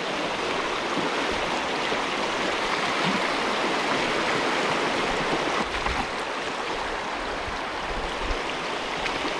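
Shallow river riffle rushing steadily over stones.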